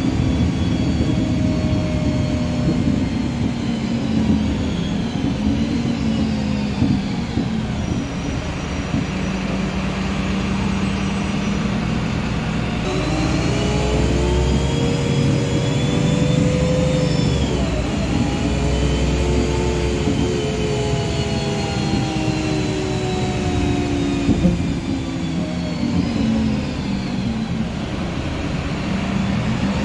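Karosa B951E city bus heard from inside the passenger cabin while driving: engine and drivetrain running, with a whine that rises and falls in pitch as the bus speeds up and slows down, a couple of brief knocks late on.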